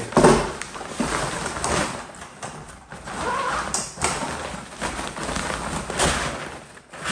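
Fabric carry bag for a Campingaz Party Grill rustling and bumping as it is handled and lifted with the grill packed inside.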